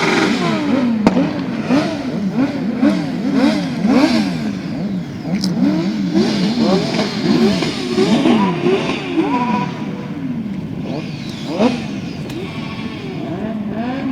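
Several off-road motorcycle engines revving up and down, their pitches rising and falling and overlapping one another. The engines grow quieter and fewer after about ten seconds.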